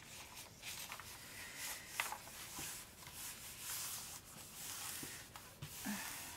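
Hands smoothing and pressing a rolled diamond-painting canvas flat on a table, its paper cover sheet rubbing and rustling softly with faint scattered ticks.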